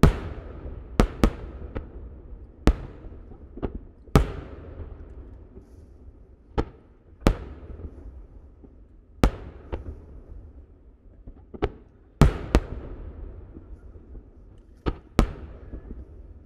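Barrage of 10-inch (shakudama) aerial fireworks shells: about fifteen sharp bangs at irregular intervals, each trailing off in a rolling echo. The loudest come at the very start and about twelve seconds in.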